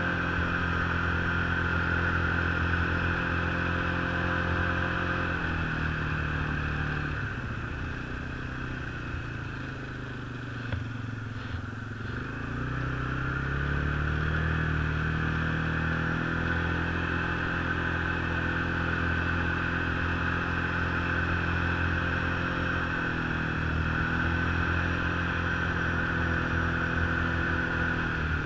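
Engine of a vehicle being ridden along a snowy trail, running steadily at cruising speed. About six seconds in it eases off and drops in pitch, with a couple of brief knocks near the low point, then speeds back up and runs steady again.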